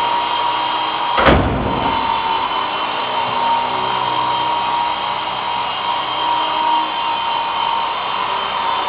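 Small electric radio-controlled helicopter (GT 5889) running, its motor and rotor giving a steady whine with a held tone. A single sharp thump comes about a second in.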